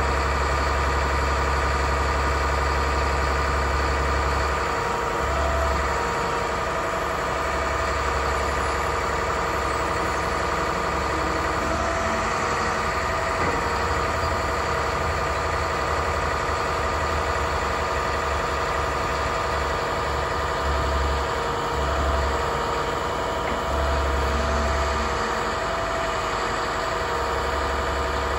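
A MaxxForce DT turbo diesel in an International 7300 truck runs steadily, driving the Terex digger derrick's hydraulics as the boom is lowered and retracted.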